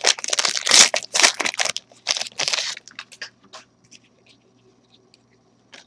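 Trading-card pack wrapper crinkling and tearing as the pack is opened by hand, in quick bursts for about three seconds, then only a few faint rustles.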